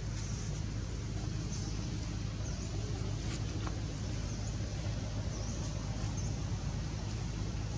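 Steady low outdoor rumble, with faint short high-pitched chirps repeating about once a second.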